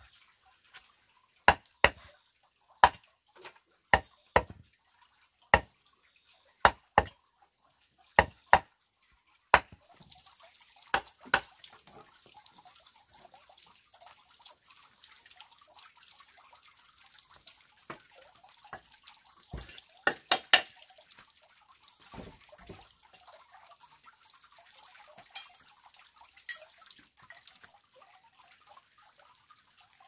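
Sharp knocks on wood, mostly in pairs about once a second, as a handmade grass broom is worked against a wooden block. After about ten seconds they give way to the soft swishing of the grass broom sweeping a floor, with a few scattered knocks.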